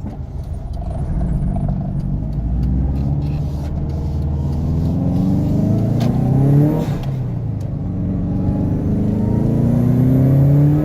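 Subaru Impreza WRX's turbocharged flat-four engine accelerating hard with its boost turned up to about 10 or 11 psi. Its pitch rises steadily, drops at a gear change about six to seven seconds in, then climbs again.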